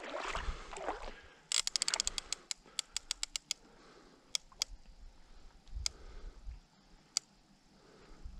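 Fishing reel clicking under load from a hooked shark: a quick run of clicks about a second and a half in that slows and thins out, then a few single clicks.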